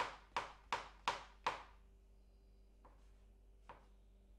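Kitchen knife chopping mushrooms on a cutting board: five quick, evenly spaced chops, about three a second, then it stops, with two faint knocks later on.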